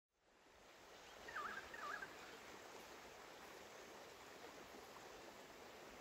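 A river flowing gently over stones: a soft, steady rush of water that fades in at the start. A bird gives two short wavering calls about a second and a half in.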